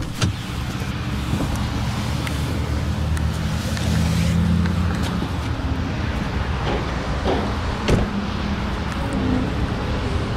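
Car door latch clicks open and a steady low outdoor rumble floods in; about eight seconds in, a car door shuts with a sharp thud.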